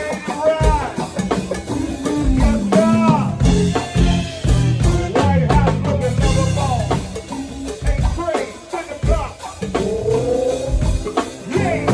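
Live go-go band playing, with drum kit and percussion keeping a steady beat under sung or horn lines that bend in pitch.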